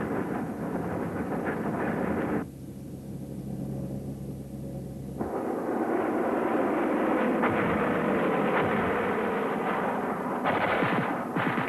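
Dense crackle of gunfire with heavy booms. About two and a half seconds in it gives way to a steady low aircraft engine drone for a few seconds, then the gunfire returns, with sharper, louder shots near the end.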